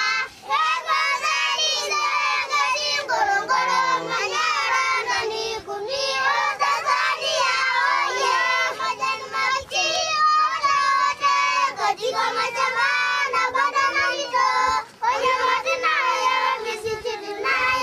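A group of children singing together, high voices held in long continuous phrases with only brief breaks.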